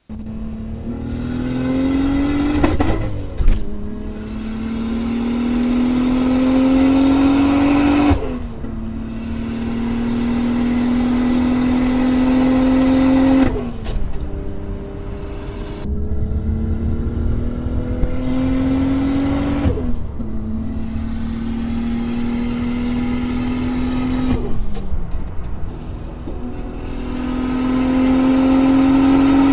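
Nissan R34 Skyline's RB25 straight-six heard from inside the cabin, pulling up through the revs and dropping back at each gear change, about five times. In one stretch near the two-thirds mark the revs hold steady and sag slightly before the car pulls again.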